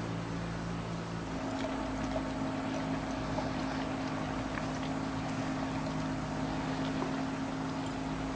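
Steady low engine-like hum made of several held tones, which shifts in pitch about a second in and then runs on evenly.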